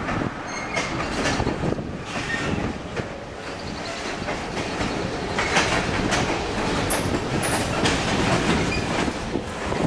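Train rolling past on the Falls Road Railroad behind ALCO RS-11 #1802, its wheels clicking over the rail joints, with a few brief high wheel squeals about seven to eight seconds in.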